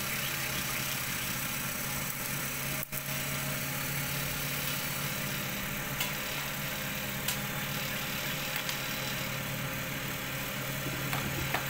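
Cotton candy machine running with its jumbo cast-aluminium furnace: the spinning head's motor hums steadily under an even hiss, with a few light ticks.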